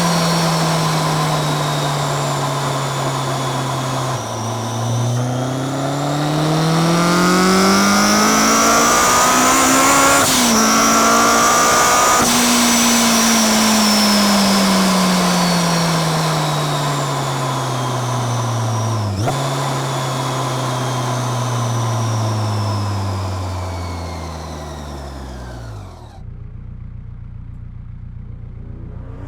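Supercharged Honda S2000's 2.2-litre four-cylinder engine with a Kraftwerks centrifugal supercharger, heard from under the hood and at the exhaust. The revs rise with a climbing supercharger whine, break briefly about ten seconds in, then fall steadily for about fourteen seconds. The engine settles to a steady idle near the end.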